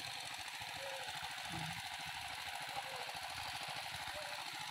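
A small engine running steadily, with a fast, even low pulse. A voice calls out briefly about a second and a half in.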